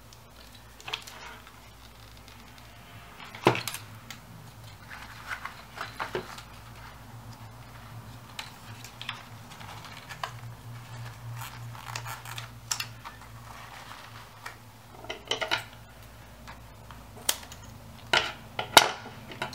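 Paper strips and a crumpled-napkin paper sculpture being handled and worked: irregular rustling and crinkling with scattered sharp clicks and taps, over a faint low hum.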